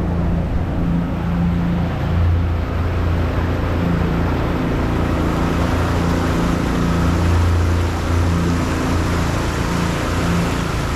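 Aquabus passenger ferry's engine running with a steady low drone over an even rushing hiss.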